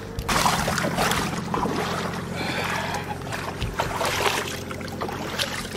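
Water splashing and sloshing around a boat as it floats off its trailer at the launch ramp, over the steady low hum of an idling truck engine.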